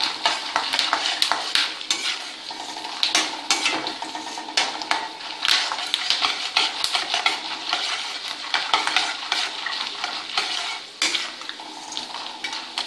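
Peanuts, dals and dried red chillies sizzling in sesame oil in a metal kadai, with a metal ladle scraping and clicking against the pan as they are stirred. The tempering is frying until the peanuts turn reddish.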